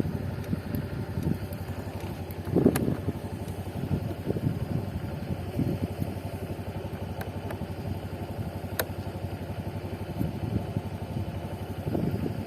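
Motor scooter engine running steadily on the road, a low drone with road and wind noise. Two sharp ticks stand out, a few seconds in and again about two-thirds of the way through.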